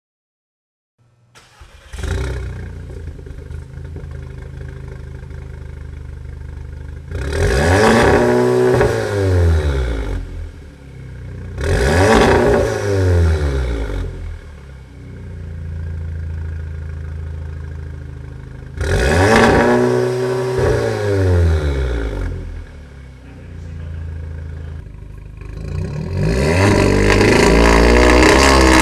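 2015 Audi S3's turbocharged 2.0-litre four-cylinder, heard through an AWE Tuning SwitchPath turboback exhaust with a non-resonated downpipe. It starts up about two seconds in, idles, and is blipped three times, the pitch climbing and falling each time. Near the end it is held at high revs on launch control, set at 4500 rpm.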